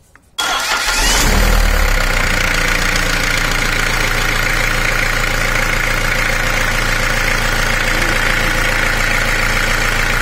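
Starter motor cranking an engine: a faint click, then the starter engages suddenly and the engine turns over with a loud, steady whir.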